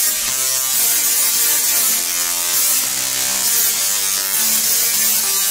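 Tesla coil discharging, its sparks making a harsh electric buzz that jumps from pitch to pitch in a string of short notes, as a musical Tesla coil playing a tune.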